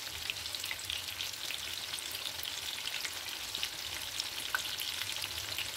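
Marinated chicken pieces frying in hot oil in a pan: a steady sizzle with fine, rapid crackling.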